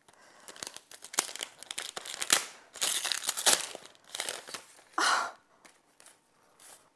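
Gift-wrapping paper being torn and crumpled as a present is unwrapped: a run of irregular crackles and rips that dies away about five seconds in.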